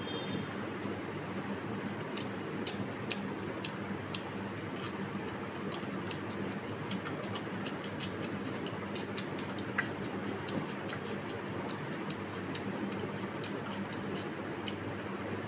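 Close-up eating sounds: chewing with many small, irregular mouth clicks as handfuls of rice and mutton curry are eaten by hand, over a steady background hiss.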